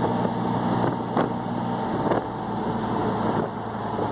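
Chevy S10 pickup heard from inside the cab while driving at speed: a steady engine drone over tyre and road noise, the engine note stepping slightly lower about halfway through, with one brief knock about a second in.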